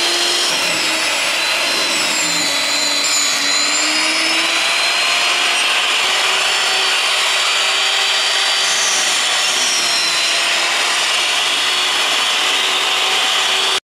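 Kakunomi (hollow chisel mortiser) boring a square mortise into a timber beam: its motor runs steadily under load, the tone wavering a little as the chisel and auger cut through the wood.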